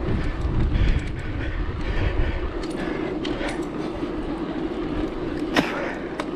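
A mountain bike rolling along a tarmac street: steady tyre noise and rattle, with wind buffeting the camera microphone that is heaviest in the first second. Scattered small clicks, and one sharp knock about five and a half seconds in.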